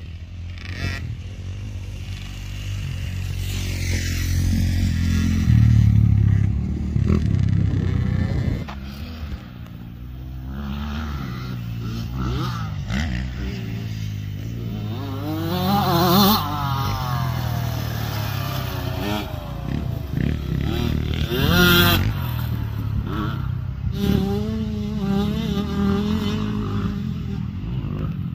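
Dirt bike engines running on a motocross track, the pitch rising and falling as the bikes rev and go by. The loudest pass comes about six seconds in, with further swells around sixteen and twenty-two seconds.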